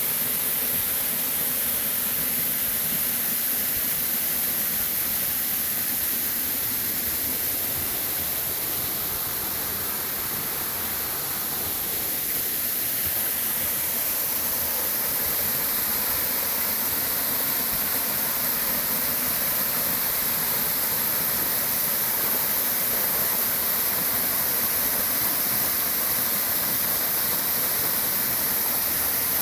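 A waterfall about eight metres high, its falling water making a steady, even hiss.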